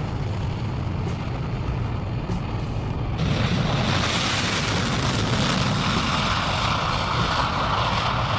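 Concorde's four Olympus 593 turbojets at full takeoff power with afterburners lit, a steady jet roar. About three seconds in, it turns louder and hissier.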